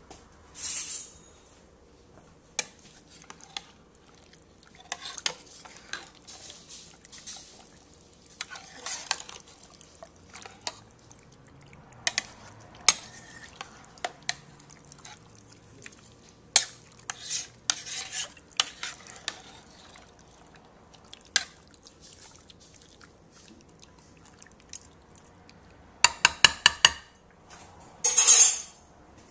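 Kitchen utensils clinking and scraping against a bowl as fish is stirred in buttermilk, in scattered knocks with quiet gaps between. Near the end comes a quick rattling run of clicks lasting about a second, then a short rustle.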